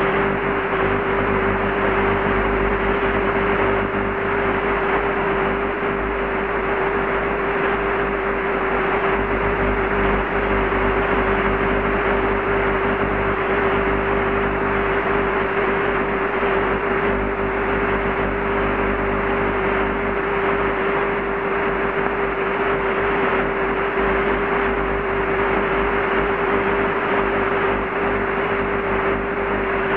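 AM video buzz from a very weak, fluttery long-distance television signal, Rai 1 on channel IA. It is a steady buzz with one strong steady tone at a few hundred hertz, fainter hum lines below it, and a hiss of noise on top.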